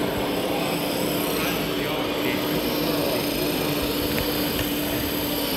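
Hydraulic pump of an RC model Liebherr 960 excavator running steadily with a constant hum while the arm and bucket dig into dirt, over background crowd chatter.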